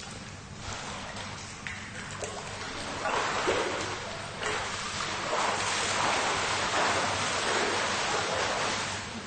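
A swimmer splashing and stroking through water in a swimming pool. The splashing grows much louder about three seconds in and keeps going, over a low steady hum.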